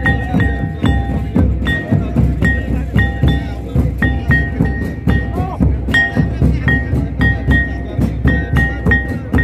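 Santal folk drums played live, beating a fast, driving rhythm of low thuds, with a ringing metallic note struck along with many of the beats.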